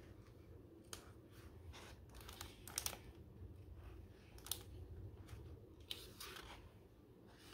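Pages of a hardcover picture book being turned by hand: faint paper rustles and a few soft flicks and taps, over a low steady hum.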